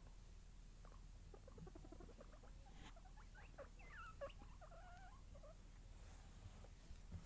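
Guinea pigs under a blanket making a quick series of short, faint squeaks and chirps, busiest in the middle, with soft fabric rustling as they move.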